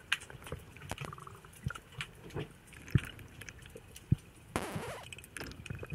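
Underwater sound heard through a camera's waterproof housing: scattered clicks and crackles with a few dull knocks, and a short rushing hiss about four and a half seconds in.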